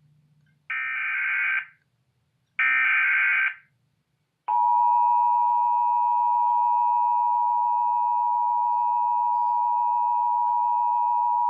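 Emergency Alert System alert tones: two one-second bursts of the SAME digital header's rasping data tones, then about four and a half seconds in the steady two-tone attention signal (853 and 960 Hz together) starts and holds.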